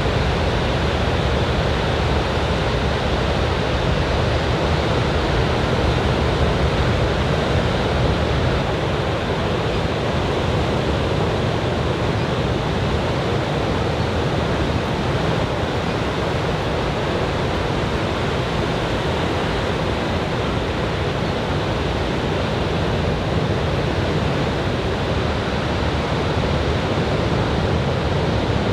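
Surf from a typhoon swell breaking on the beach: a steady, even rush of waves with no single crash standing out.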